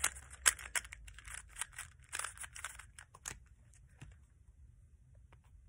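Paper gift bag rustling and crinkling as a puzzle cube is put into it and the next one is taken out, a string of short rustles and clicks over the first three seconds or so.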